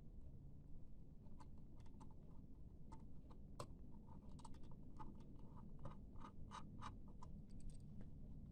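Faint, irregular small clicks and taps of laptop parts being handled and fitted by hand, in quick clusters over a low hum.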